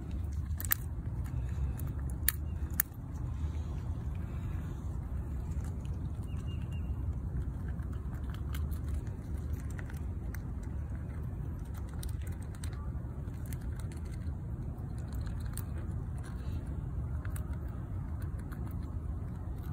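Steady low rumble with scattered sharp clicks and crackles, the loudest clicks in the first three seconds: a fox squirrel gnawing at food.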